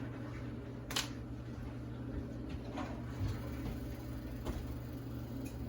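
Oven door being opened and a loaf pan taken out: a sharp clack about a second in, then a few softer knocks, over a steady low hum.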